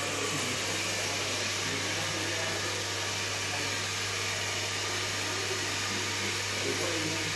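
Steady airy noise of a small electric fan motor, with a constant low hum.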